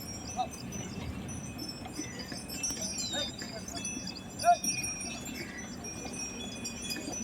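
Bells on bullocks' necks jingling and ringing in short, irregular chimes over a steady low rumble. A short sharp call sounds faintly once about half a second in and loudest about four and a half seconds in.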